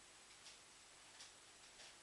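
Near silence: faint steady hiss of room tone with three faint, short clicks.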